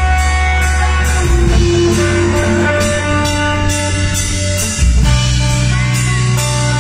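Live rock band playing an instrumental passage: electric guitars and bass over drums, with steady cymbal strokes and the bass moving to new held notes twice.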